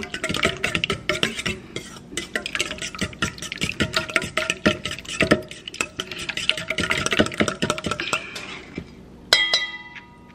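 A fork beating egg batter in a glass bowl, with rapid clicking strokes against the glass. About nine seconds in, the beating stops and one sharp clink rings on briefly.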